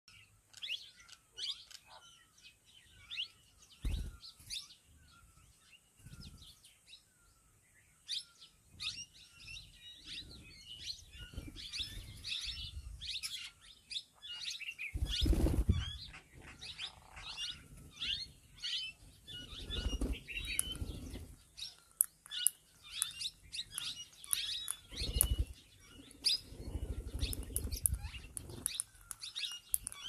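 A flock of plum-headed parakeets calling with many short, high chirps, sparse at first and thickening after about eight seconds, with several bursts of wing flapping as birds fly in to land.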